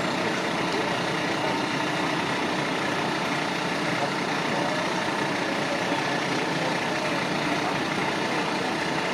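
Fire engine's engine idling steadily: an even, unbroken hum with no changes in pitch or level.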